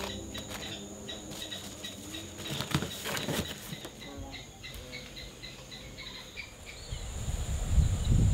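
Outdoor rural ambience: insects keep up a steady high drone while a run of short, evenly spaced chirps repeats for most of the stretch. A low rumble builds near the end.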